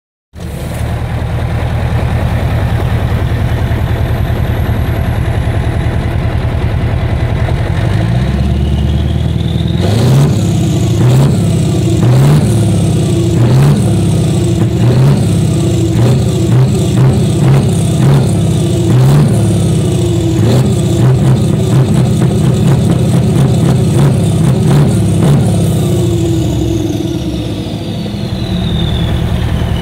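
Scania 143H 500's turbo-diesel V8 running through an open straight exhaust pipe: it idles steadily, then the revs rise about eight seconds in and it is blipped hard over and over, roughly three throttle stabs every two seconds. Near the end it settles back toward idle while a high turbo whistle falls away.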